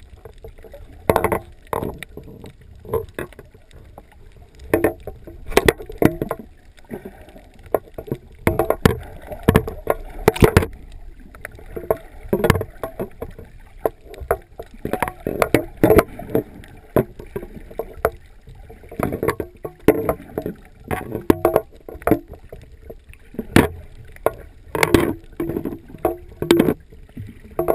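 Underwater sound picked up by a camera in a waterproof housing: clusters of bubbling and sharp knocks come every three to four seconds over a low muffled rumble of water.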